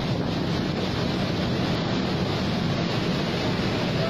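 Floodwater rushing out of an open dam spillway gate and falling down the dam face: a steady, even rush of water that neither rises nor breaks.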